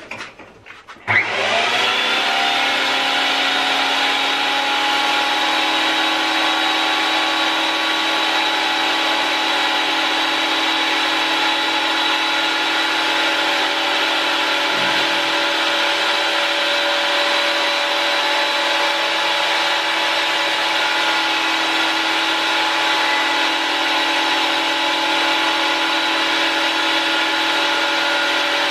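Güde GADH 200 combined jointer and thickness planer (1250 W, two-knife cutterhead) switched on about a second in. It spins up within a second, then runs at an even level with a steady whine while a board is fed through for planing.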